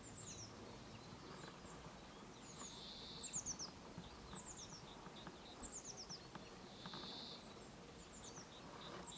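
Faint, thin, high songbird calls: short runs of four or five quick falling notes, repeated every second or two over a low background hiss.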